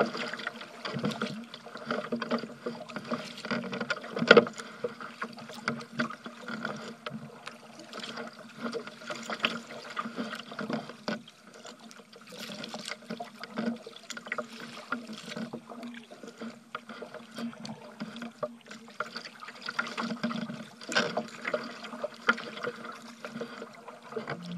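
Water splashing and sloshing around a kayak as it is paddled through choppy water, with frequent small, irregular splashes.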